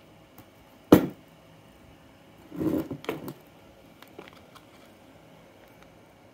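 Handling sounds as a plastic fan blade and a 775 DC motor are put down and moved about on a workbench: one sharp knock about a second in, a short rustling scrape around three seconds, then a few faint clicks. The motor is not running.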